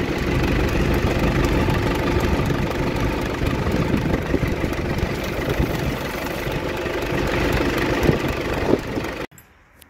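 Tractor engine running steadily at idle. The sound cuts off abruptly near the end.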